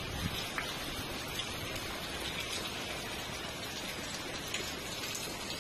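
Steady rain falling on a flooded street, an even hiss of drops on water and wet surfaces.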